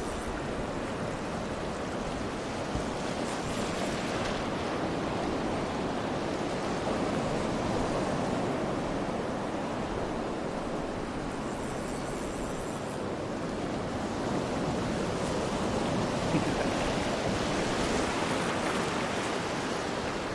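Small surf breaking and washing over a shallow sandy beach: a steady rush of water that swells and eases slowly.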